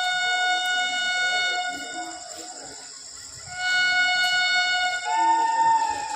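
Train horn of an express running through a station without stopping, sounding two long steady blasts with a pause of about a second between them. A second, higher tone joins the second blast near the end.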